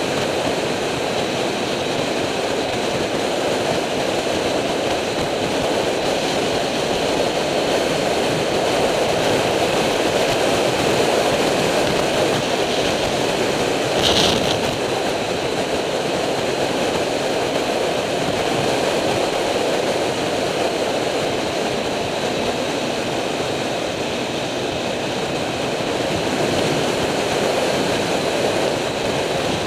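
Steady wind rush over the microphone of a bike-mounted camera on a Triumph Street Triple motorcycle at road speed, with the bike's three-cylinder engine running under it at a steady cruise. About halfway through there is a brief higher-pitched sound.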